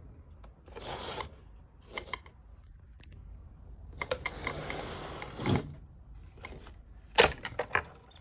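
Handling noise from a small RC monster truck with oversized rubber tires: rubbing and scraping in several stretches, then a few sharp clicks and knocks near the end.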